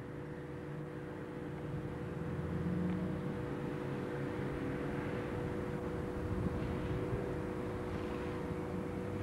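Slow-moving diesel locomotives approaching, led by a Class 45 'Peak': a steady engine drone over a low rumble, growing louder over the first few seconds and then holding.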